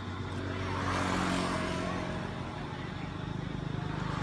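A motor vehicle's engine hums steadily and grows louder about a second in, then eases off. Near the end its sound turns to a fast, even pulsing.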